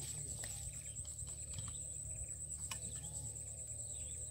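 Insects shrilling in one continuous high-pitched trill over a steady low rumble, with a few faint clicks.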